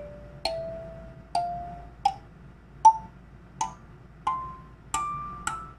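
Unbranded kalimba with steel tines on a clear plastic body, plucked one note at a time in an ascending run of about eight notes, each ringing out briefly before the next. Its higher notes have a short sustain and a thin, tinny tone, which the owner counts as this cheap kalimba's flaw.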